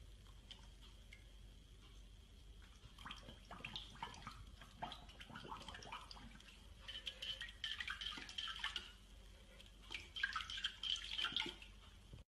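A puppy splashing and biting in a water-filled dog bowl, its mouth dipping into the water after the bone picture on the bottom: small irregular splashes and drips, loudest in two spells in the second half.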